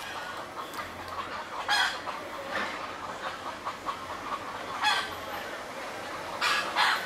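Chickens clucking: a few short calls about two seconds in, again about five seconds in, and a pair near the end.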